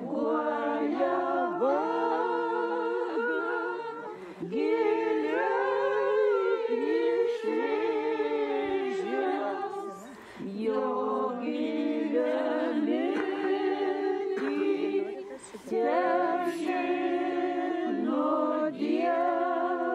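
A small group of older women singing a Lithuanian song together without accompaniment, in long phrases with short breaks between them.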